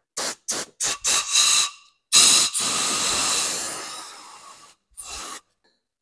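Compressed-air blow gun hissing in several short blasts, then one longer blast that fades out, and a last short one, blowing out a freshly reamed Ford Model T spindle bushing.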